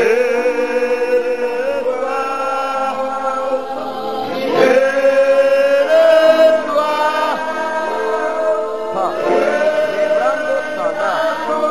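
Church congregation singing a slow worship song, with voices holding long notes and sliding between them.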